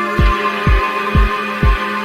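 Electronic background music: a steady kick drum about twice a second under sustained synth chords.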